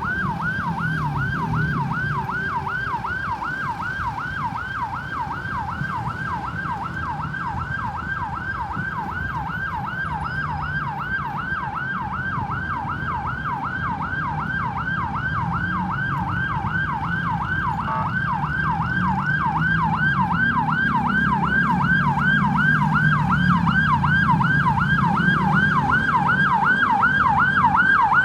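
Ambulance siren on a fast yelp, its pitch sweeping up and down several times a second without a break, growing louder over the last third. A low road and engine rumble runs beneath it.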